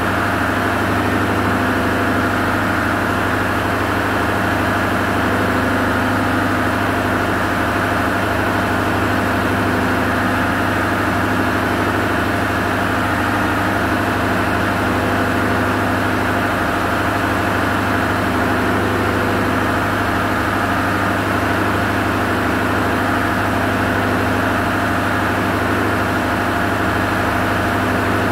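Diesel machinery in a ship's engine room running at a constant speed: a loud, unbroken drone with steady hum tones and no change throughout.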